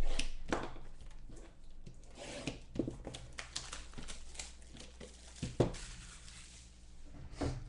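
Trading card box packaging being torn open by hand, the plastic wrapping crinkling in irregular rustles and small clicks, with a sharper knock about five and a half seconds in.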